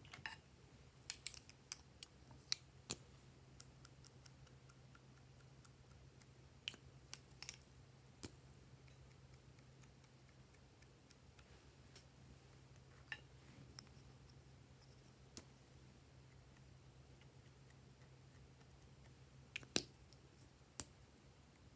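Sparse light clicks and taps from small glass nail-polish bottles being picked up, opened and handled, over near silence and a faint steady low hum. The clicks bunch together near the start, and the loudest come near the end.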